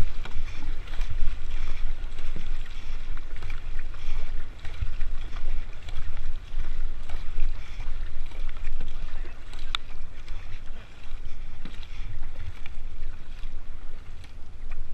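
Double-bladed paddle strokes splashing and dipping in river water from a kayak under way, with wind buffeting the microphone.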